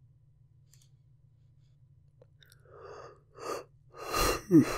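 A man's breathing: a couple of breaths in, then a heavy sigh out that ends in a voiced sound falling in pitch near the end. It comes after a couple of seconds of near quiet with only a faint low hum.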